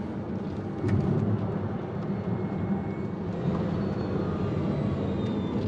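Porsche 918 Spyder's 4.6-litre V8 running under load, heard from inside the cabin with road and wind noise. It gets louder about a second in and then holds fairly steady.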